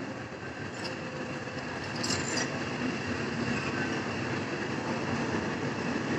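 Passenger coaches of a departing train rolling past along the platform, a steady rumble of wheels on rail that grows louder from about two seconds in as the train gathers speed. A couple of brief high wheel squeals come near one and two seconds in.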